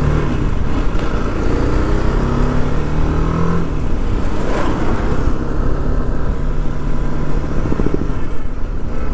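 TVS Apache RR 310's single-cylinder engine accelerating, its pitch rising for the first three and a half seconds, then dropping and running on more steadily. A brief rush of noise comes about four and a half seconds in.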